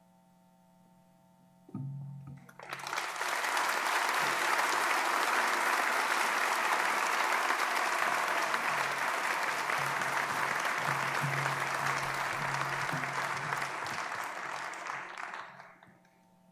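Audience applauding for about thirteen seconds, starting a couple of seconds in and dying away near the end.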